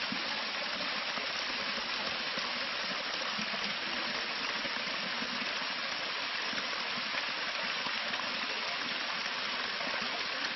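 Steady rush of water pouring down the Șușara waterfall.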